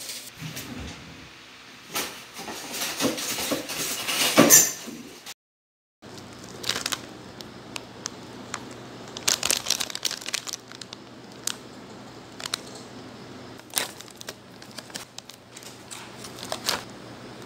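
Plastic snack packet crinkling and crackling in irregular bursts as it is handled, loudest about four seconds in. The sound drops out completely for about half a second just after five seconds, then sparse crinkles and clicks follow.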